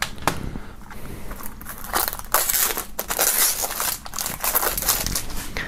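Clear plastic shrink-wrap being peeled and pulled off a CD jewel case, crinkling and crackling, loudest in the middle, with a few sharp clicks near the start.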